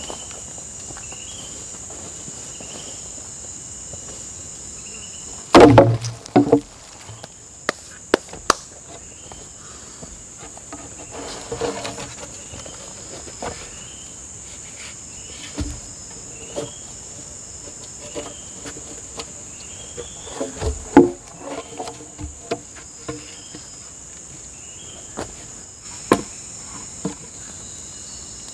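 Steady high drone of forest insects, with irregular knocks of bamboo poles being handled and set down. The loudest knocks come in a quick cluster about six seconds in, another around twenty-one seconds.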